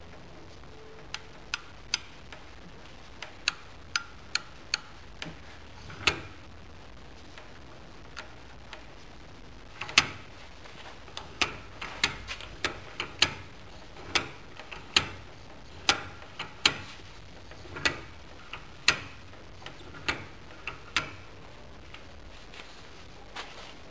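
Irregular sharp metallic clicks and knocks from parts of a Holbrook lathe being worked by hand, with no motor running.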